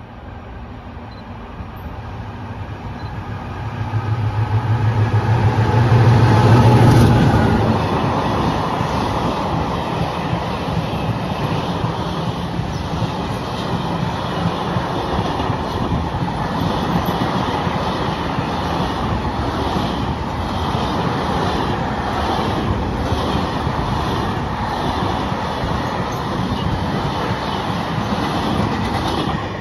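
An Italian electric train passing through a station: the locomotive comes closer with a low hum that peaks about six or seven seconds in, then the cars roll past steadily with a regular clicking of wheels over rail joints. The sound cuts off suddenly at the end.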